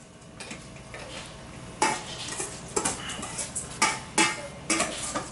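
A spoon stirring and scraping inside a jar, with about five sharp clinks against the jar from about two seconds in.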